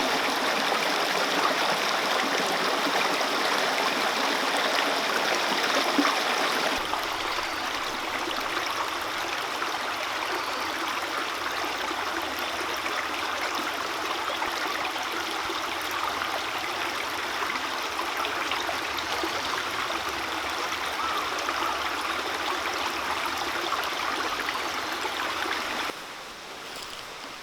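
Mountain stream rushing and babbling steadily. It drops a step in loudness about seven seconds in and again near the end.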